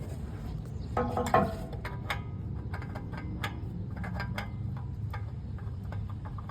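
Scattered light clicks and knocks of a new spin-on oil filter and hands working against the engine as the filter is threaded on by hand, with a cluster of louder knocks about a second in.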